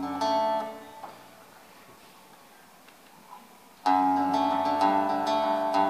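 A live rock band with guitars: one plucked chord rings and fades within about a second, then a quiet pause. About four seconds in the whole band comes in together with a loud, sustained chord.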